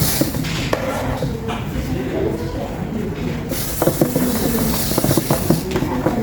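Small toy-robot gear motor running, with plastic parts clicking and rattling as the bulldozer drives and works its blade; many short clicks over a steady rumble.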